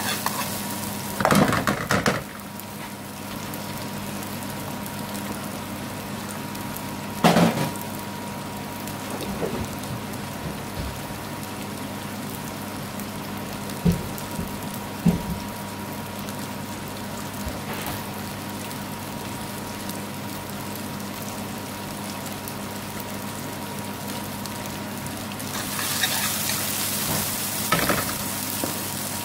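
Chopped onion and bay leaves frying in ghee in a metal frying pan: a steady sizzle that grows louder near the end as the onion is stirred. A metal spoon knocks and scrapes against the pan a few times.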